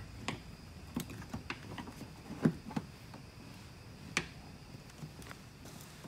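Scattered light clicks and taps from a Chevrolet Silverado's plastic side-pillar trim panel being pried loose by hand and with a flathead screwdriver, about seven in all, the loudest about two and a half seconds in. The clicks are the panel's retaining tabs popping free.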